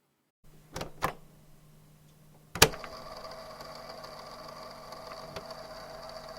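Cassette tape player: two light clicks of its keys, then a loud clunk as a key latches down, followed by the steady whir of the motor fast-winding the tape, which cuts off suddenly.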